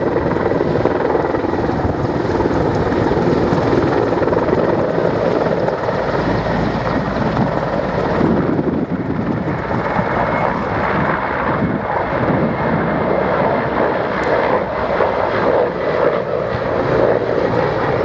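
Mil military helicopters (Mi-171 Hip and Mi-35 Hind) running steadily, their twin turbine engines and rotors giving a continuous loud drone.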